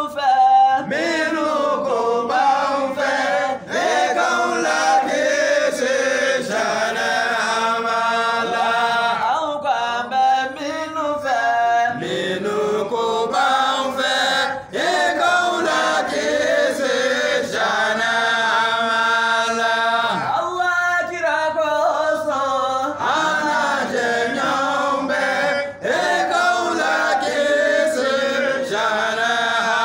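A group of men chanting a devotional song together, unaccompanied voices in unison with long held notes and short breaths between phrases.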